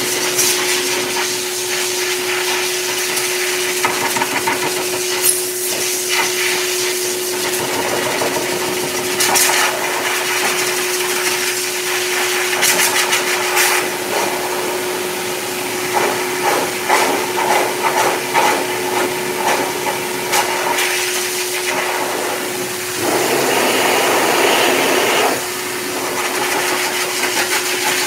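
K9 heavy-duty high-velocity dog dryer blowing through its hose into a wet coat: a steady rush of air with a constant whine, broken by light ticks and rattles. For about two seconds near the end the whine drops out under a louder, fuller rush.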